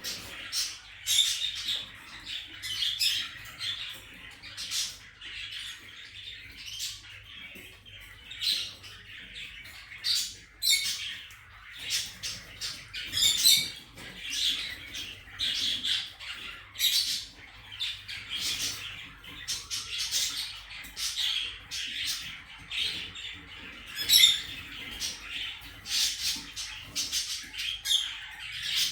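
Kakariki parakeets chattering: many short, sharp chirps and squawks in quick, irregular succession.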